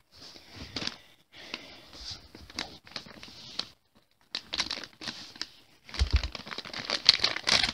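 Foil blind-bag packet crinkling and tearing as it is handled and ripped open, in irregular bursts with short pauses, loudest near the end. A low bump about six seconds in.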